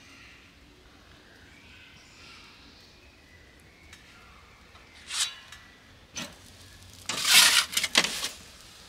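Faint birdsong, then a metal pizza peel scraping against the stone floor of a wood-fired Ooni pizza oven. Two short scrapes come about five and six seconds in, and a longer, louder scrape follows near the end as the cooked garlic bread is slid out on the peel.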